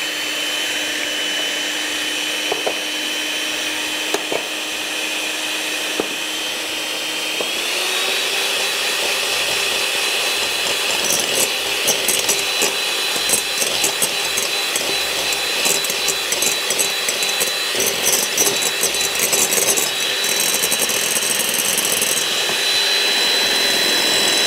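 Electric hand mixer running steadily, its beaters whisking eggs in a glass bowl. About seven seconds in, its whine steps up to a higher speed. From about eleven seconds in there is a run of light clicks.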